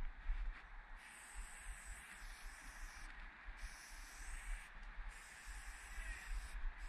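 Aerosol spray paint can hissing as a line is sprayed onto brick, in long strokes of a second or two, broken by short pauses between strokes.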